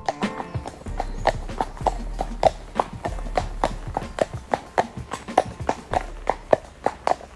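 A horse's hooves clip-clopping on a tarmac lane, a steady run of about three to four hoofbeats a second as it is ridden along.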